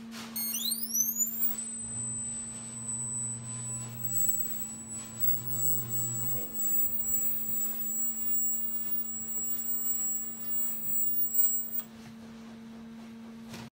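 Induction heater running as it heats steel oil-filter canisters: a high-pitched whine that glides up over the first second or so, then holds steady and cuts off suddenly near the end, over a steady low hum.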